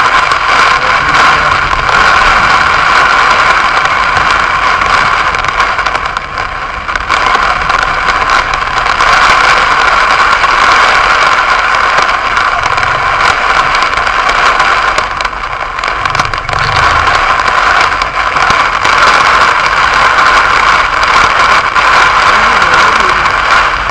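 Heavy rain drumming on a car's roof and windscreen, heard from inside the car: a loud, steady hiss full of sharp hits, dipping briefly twice.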